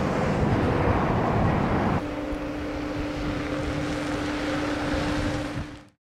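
Wind buffeting the microphone outdoors with a heavy rumble; about two seconds in the sound changes abruptly to a lighter hiss with a steady low hum, and it fades out just before the end.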